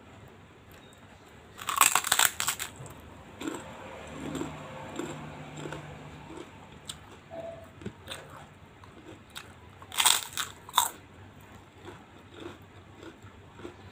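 Close-up crunching as bites are taken from a crisp kerupuk cracker: two bursts of loud crackling, about two seconds in and again about ten seconds in, with quieter chewing in between.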